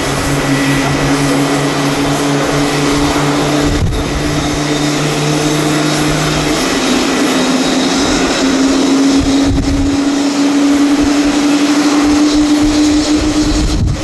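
Boeing 737 airliner's jet engines running loud and steady on the runway: a rushing noise with steady humming tones that shift in pitch about halfway through.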